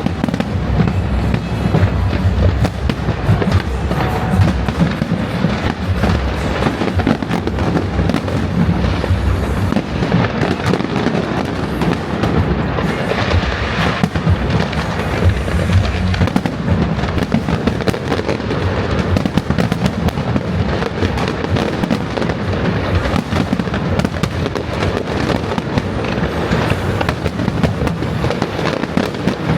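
Fireworks going off in a dense, continuous barrage: rapid overlapping bangs and crackling with no break.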